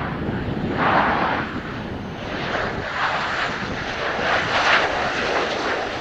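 F/A-18C Hornet's twin General Electric F404 turbofan engines running on final approach to land, the jet noise swelling and easing several times.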